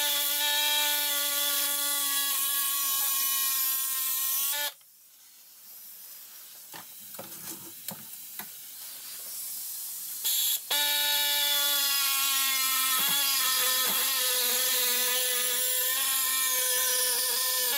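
Small handheld electric power tool cutting a flattened steel half-pipe clamped in a vise, its motor giving a steady whine. It runs for about five seconds, stops, then runs again for about seven seconds. In the pause there are a few knocks and clicks of the metal being handled.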